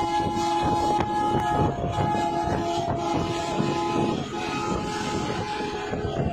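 Bedford truck air horn blowing a long held note, its pitch shifting about a second and a half in and breaking off about four seconds in, over heavy diesel engine and wind noise.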